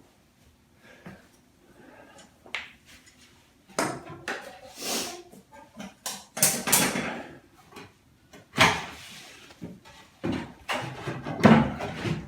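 Irregular knocks, clatters and scrapes of a wooden skirting board and tools being handled and shifted, with quiet gaps between.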